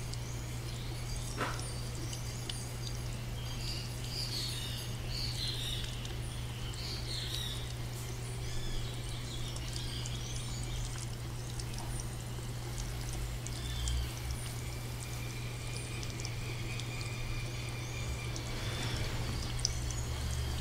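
Nature ambience: birds chirping over steady running water.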